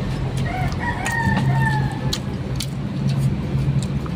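A rooster crowing once, a drawn-out call lasting about a second and a half, starting about half a second in. A steady low hum runs underneath, with scattered light clicks.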